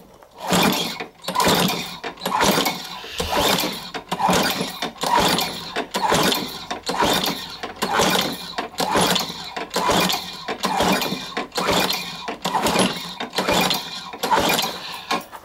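Craftsman 6.75 HP Tecumseh lawnmower engine being pull-started over and over, about one pull a second. Each pull is a short whir of the recoil starter rope and the engine cranking, and it never catches: the engine won't start with its blade removed.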